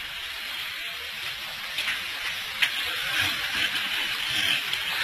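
Steady hiss of an old recitation recording, with a few faint clicks and a sharper click about two and a half seconds in.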